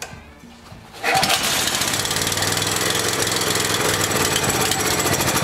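Small single-cylinder generator engine catching about a second in and then running steadily. It is running on choke: it still only runs on choke, and the trouble is put back by the intake manifold, an air leak.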